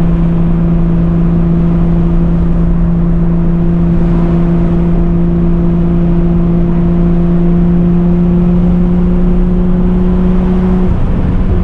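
Turbocharged BMW M50 inline-six in an E36, heard from onboard, running at steady revs under a haze of road noise. Its engine note holds one pitch and breaks off near the end.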